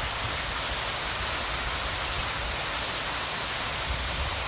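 Steady rush of water falling down an artificial waterfall.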